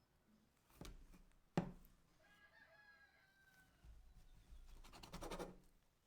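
Faint rooster crow, one drawn-out call of just over a second, between two light knocks and a rustling scrape near the end.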